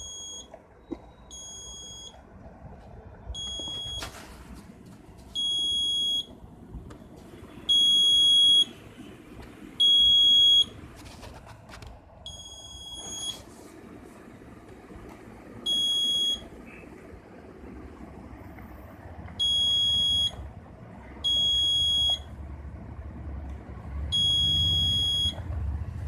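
Panic buzzer of a model anti-sleep car alarm beeping: a high-pitched steady tone in bursts of about a second, switching on and off at uneven intervals about ten times. It sounds when the driver figure leans toward the steering wheel, between the LED and the light-dependent resistor that senses a drowsy driver.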